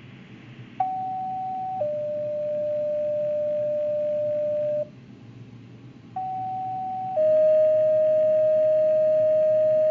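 Two sets of two-tone sequential pager tones over a dispatch radio channel. Each set is a higher tone of about a second followed by a lower tone held about three seconds, with a short gap between the two sets. These tone-outs set off the alert pagers of the fire and rescue units being called.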